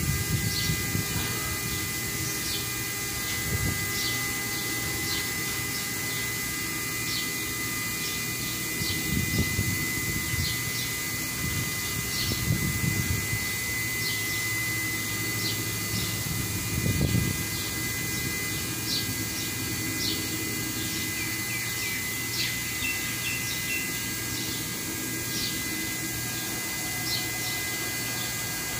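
Steady machinery drone with a thin constant whine, a few dull low thumps, and short high chirps recurring about once a second.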